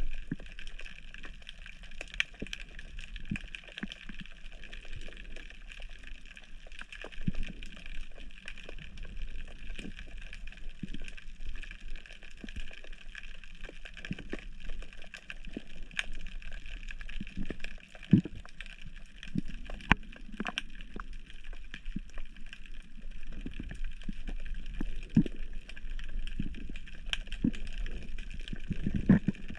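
Muffled water sounds picked up by a camera underwater, a steady hiss with scattered clicks and a few louder knocks.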